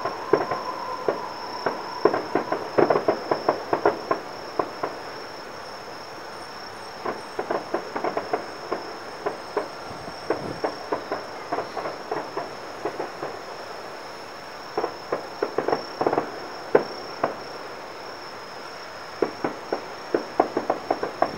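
Distant fireworks going off in irregular clusters of sharp cracks and pops, heard across the city, with gaps of a second or two between volleys. Insects trill steadily in the background.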